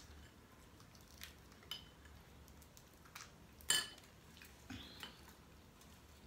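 Scattered light clicks and clinks of shellfish shells and dishes as seafood is cracked and peeled by hand, with one louder clack about three and a half seconds in.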